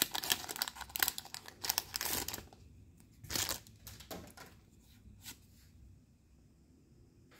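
Foil wrapper of a Pokémon booster pack torn and peeled open by hand, a dense crinkling crackle for about two and a half seconds. Then a few short rustles as the cards are handled, and it goes quiet.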